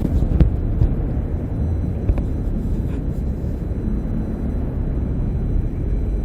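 Busy street traffic: a steady, dense low rumble of passing vehicles.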